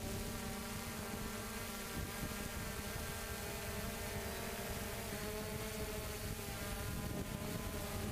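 3DR Solo quadcopter's four electric motors and propellers humming steadily while it hovers, heard up close from the camera on the drone, with wind noise underneath. The pitch shifts slightly about five seconds in.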